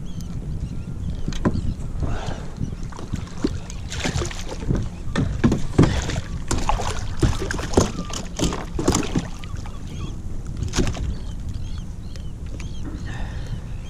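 A hooked sea bass splashing at the surface beside a sit-on-top kayak as it is grabbed by hand and lifted out of the water. There is a rapid run of sharp splashes and knocks, loudest in the middle, which settle down near the end.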